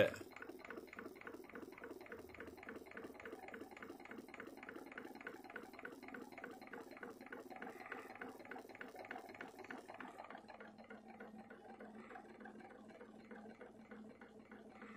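Homemade magnet-flywheel pulse motor running on its coil driver circuit: a fast, even ticking that grows fainter near the end.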